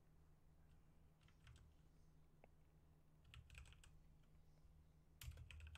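Faint typing on a computer keyboard: a few scattered keystrokes, then a quicker, louder run of keys near the end.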